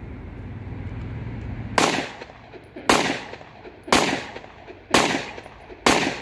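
9mm compact pistol, a locally made copy of a Glock 26 Gen 4, fired five times at about one shot a second, each shot ringing out briefly before the next.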